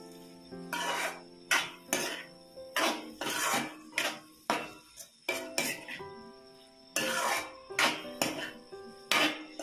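A metal spoon scraping and knocking against an aluminium wok as leafy vegetables are stirred, with repeated strokes about one or two a second. Background music with steady held notes plays underneath.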